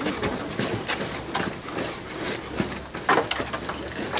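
Homemade wooden carpet treadmill running under a walking dog: irregular clicks and knocks from its frame, rollers and the dog's paws on the carpet belt.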